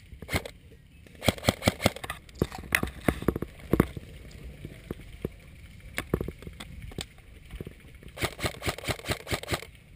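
Airsoft gun firing: two quick strings of sharp clicking shots at about seven a second, one about a second in and another near the end, with scattered single shots between them.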